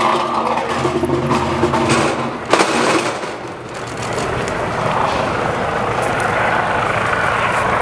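A steady engine drone, then a single sharp knock about two and a half seconds in, after which a rushing noise builds and holds.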